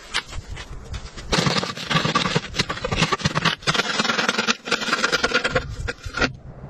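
Crunching snow and pine branches, with a rusty steel pipe scraping as it is pushed into the snowy ground: a dense, crackling clatter that starts about a second in and stops shortly before the end.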